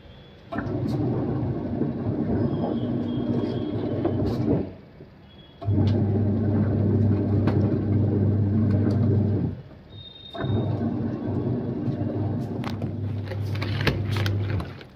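Semi-automatic washing machine's motor humming through a wash cycle. It stops for about a second roughly every five seconds, as the agitator pauses and reverses. A few sharp clicks and rustles of handled wet clothes come near the end.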